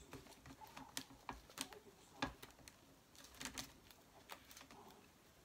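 Faint, scattered light taps and clicks as a spoon spreads and presses sticky sushi rice across a nori sheet on a rolling mat.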